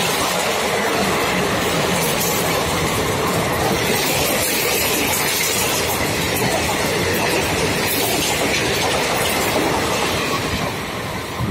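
Indian Railways express train (the Malwa Superfast Express) running through the station at speed without stopping. Its coaches make a steady, loud rush and rumble, with the clickety-clack of wheels over rail joints. The sound starts to fade near the end as the last coaches go by.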